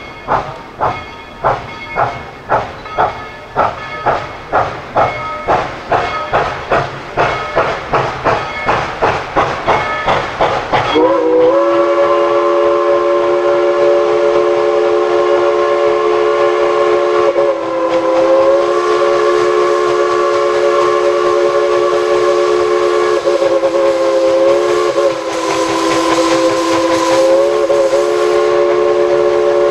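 Narrow-gauge steam locomotive working hard, its exhaust chuffs quickening as it picks up speed. About eleven seconds in, a long chime whistle blast of several tones takes over and is held to the end, dipping briefly a couple of times.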